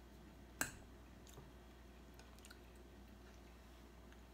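A metal fork clinks sharply once against a glass bowl about half a second in, followed by a few faint clicks and quiet chewing.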